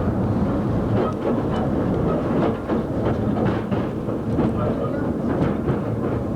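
Narrow-gauge train running on the rails: a steady rumble with irregular wheel clicks and clatter.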